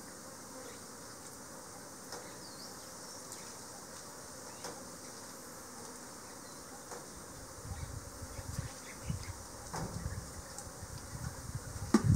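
Bees buzzing: a low buzz comes and goes from about halfway through, as bees pass close, and grows louder near the end, with a sharp knock just before the end.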